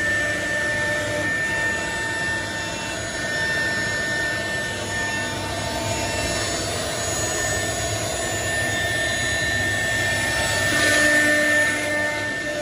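CNC router cutting wood panels clamped on its vacuum table, with its 250 m³ vacuum pump running: a steady machine noise with a high whine throughout, swelling louder briefly about eleven seconds in.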